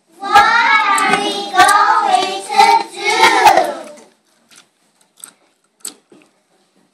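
Young children singing a short phrase together for about four seconds, with a few sharp knocks among the singing. After that only a few faint clicks and taps.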